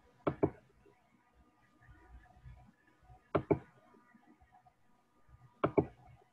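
Zoom's participant-join alert: a quick double knock-like sound, heard three times about two and a half seconds apart, as people enter the meeting.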